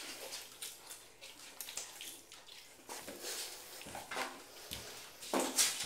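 Water splashing and sloshing in a bathtub in irregular bursts, with the loudest splash near the end.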